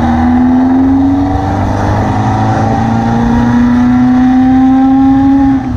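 VW beach buggy engine pulling under load while driving. Its note climbs steadily, dips about two seconds in as if for a gear change, then climbs again before dropping away near the end.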